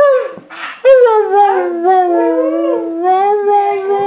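Siberian husky howling: a cry trailing off at the start, then about a second in one long howl that slides down in pitch and is held, with a second howling voice weaving over it.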